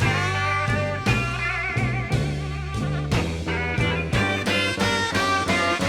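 Slow electric blues played live by a band: bass notes and drums keep the beat while a lead instrument holds wavering notes, with no singing.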